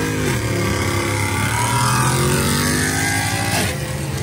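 Mercedes-Benz C63 AMG's V8 engine heard from inside the cabin, pulling under load. Its pitch falls at the start, climbs slowly, then drops sharply about three and a half seconds in.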